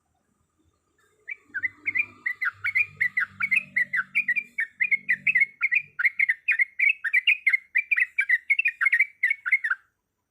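Yellow-vented bulbul (trucuk) singing a long rolling song, a fast unbroken run of short chirping notes, about five a second. It starts about a second in and stops shortly before the end.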